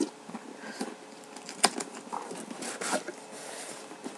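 Cardboard box being opened by hand: scraping and rustling of the card with several sharp clicks, the loudest about a second and a half in, as the lid flaps are pulled open.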